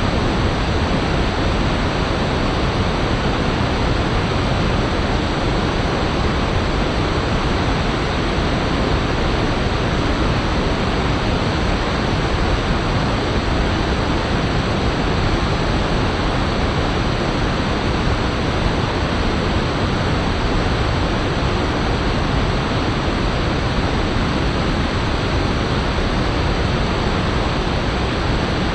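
Rushing river water, a steady, even rush of white water with no break or change.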